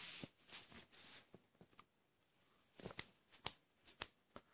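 Faint handling sounds from an acrylic ball being moved about in the hand: scattered light ticks, then a few sharper clicks and taps from about three to four and a half seconds in.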